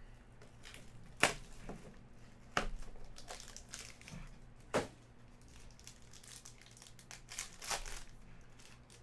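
Clear plastic wrap crinkling and tearing as a Panini Elements football card box is unwrapped, with a few sharp snaps of the plastic along the way.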